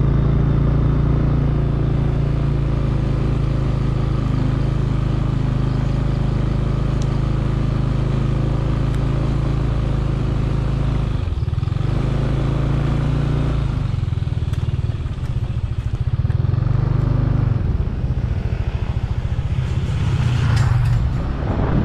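A motor vehicle's engine running close by at low, even revs, a steady low hum. It dips briefly about eleven seconds in and shifts pitch a little around fourteen seconds.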